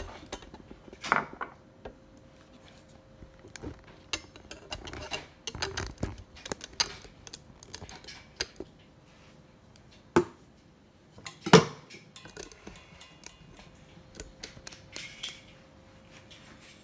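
Scattered light clicks and knocks of dishes and utensils being handled on a kitchen counter, with sharper knocks about ten and eleven and a half seconds in, over a faint steady hum.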